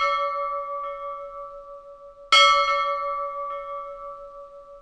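A bell rings: one stroke is already fading at the start, and a second sharp stroke comes about two seconds in, ringing on with a clear pitched tone and slowly dying away.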